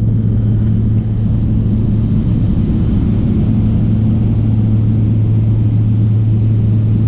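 Skydiving jump plane's propeller engine running, a steady loud drone with a constant low hum.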